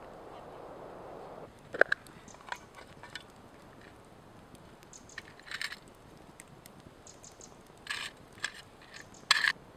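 Close handling of a small metal tin of darning wool, fingers rummaging in it: sharp clicks and short scratchy rustles. The loudest are a pair of clicks about two seconds in and a rustle near the end, after a soft steady hiss that stops suddenly at the start.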